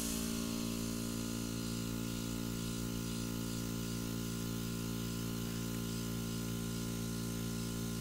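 Airbrush spraying: a steady hiss of air and ink from the nozzle over the even hum of its small electric compressor.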